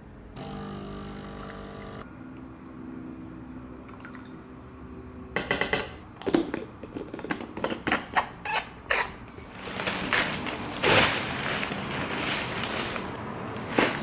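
A run of sharp knocks and clicks from handling, then from about ten seconds in a long crinkling rustle as a black plastic mailer bag is pulled and torn open by hand.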